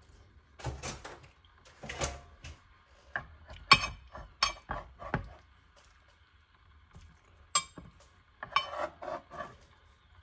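Kitchen clatter: utensils and dishes knocking and clinking together in a series of irregular sharp taps, with a quiet stretch in the middle.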